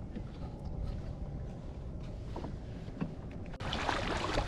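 Water lapping and splashing against the hull of a Hobie Pro Angler kayak under way, over a low wind rumble on the microphone. About three and a half seconds in, the sound suddenly turns louder and hissier.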